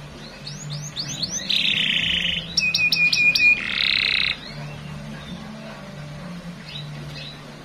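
Domestic canary singing: a quick run of rising chirps, then a buzzy trill, a burst of rapidly repeated notes and a second trill near the middle, followed by softer scattered notes.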